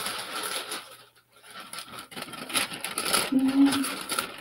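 Cardboard box being shifted and rubbed on a craft cutting mat: irregular scraping and rustling with short knocks, and a short low hum about three seconds in.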